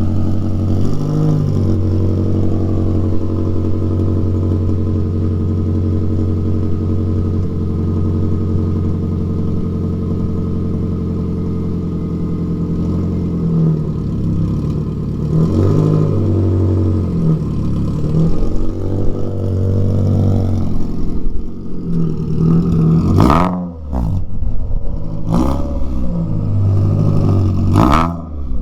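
2009 Mazda3's 2.3-litre four-cylinder engine running through a straight-piped racing header and high-flow cat: a loud, steady idle at first, then revved up and down repeatedly through the second half, with a few short sharp cracks in the last few seconds.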